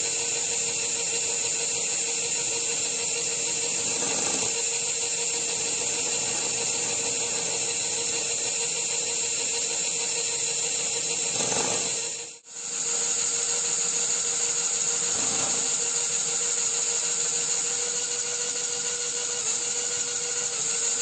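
A LEGO M motor driving a LEGO 5-speed gearbox: a steady electric whine with the plastic gears meshing, changing pitch briefly a few times. It stops for an instant about halfway through and then runs on.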